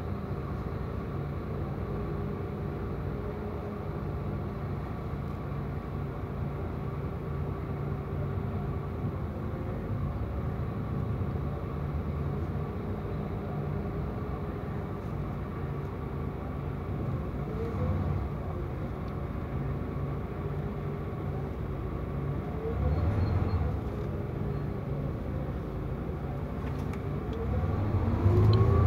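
Mercedes-Benz Tourismo coach's diesel engine heard on board, running steadily on the road. The engine note rises briefly twice midway, then grows louder and climbs in pitch near the end as the coach accelerates.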